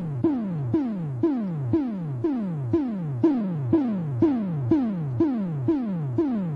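Opening of a late-1970s disco track: a synthesized drum hit that sweeps quickly down in pitch, repeated about twice a second.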